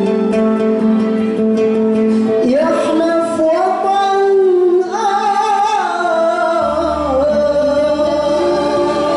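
A man singing a melismatic song into a microphone, heard through a PA with musical accompaniment. A long held note gives way about two and a half seconds in to a winding, sliding melodic line.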